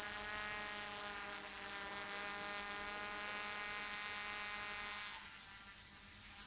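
DJI F450 quadcopter's brushless motors and propellers buzzing in flight, a steady multi-toned whine whose pitch wavers slightly. It is louder for the first five seconds, then drops back to a fainter buzz.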